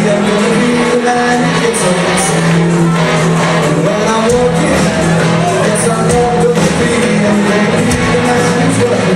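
Live rock covers band playing loudly, with singing over held notes and cymbal hits.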